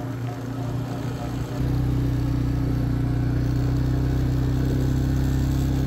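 A car's engine and road noise heard from inside the car while it drives. About a second and a half in, it turns abruptly louder into a steady low drone as the car rolls along a gravel road.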